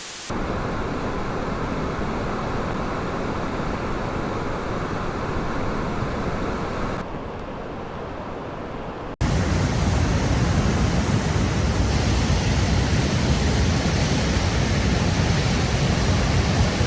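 Floodwater rushing in a swollen river: a steady, even rush of water. About nine seconds in it cuts to a louder, deeper rush.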